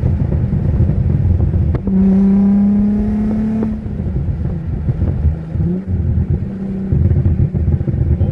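Infiniti G35's 3.5-litre V6 running through test pipes (catalytic converters removed) and a 3-inch exhaust, heard from inside the car while driving. A loud, low exhaust rumble rises and falls with throttle, settling into a steady drone for a couple of seconds a little after the start and again right at the end.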